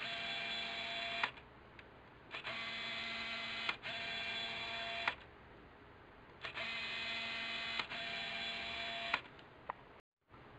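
Nikon AF Micro-Nikkor 60mm f/2.8D macro lens autofocusing, its focus driven through the screw drive by the camera body's motor: a mechanical whir running the focus through its range. There are five runs of about a second and a half each, with a click at each start and stop, and the last four come in back-to-back pairs.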